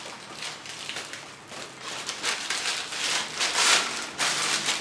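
Crusty French baguette crackling in several irregular bursts as it is broken apart by hand.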